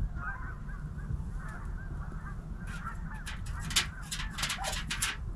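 A flock of geese honking continuously, many overlapping calls. Several sharp crackles come from about three to five seconds in.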